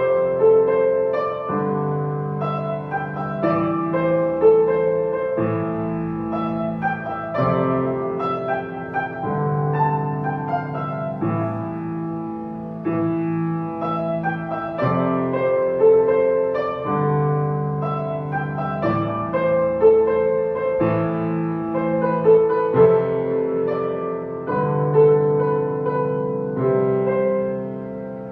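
Solo piano playing a slow pop-song arrangement: a melody of held notes over changing chords, played through without a break.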